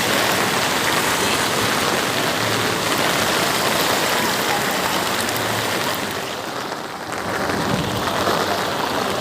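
Heavy rain falling steadily, an even rushing hiss that eases briefly about six seconds in, then picks up again.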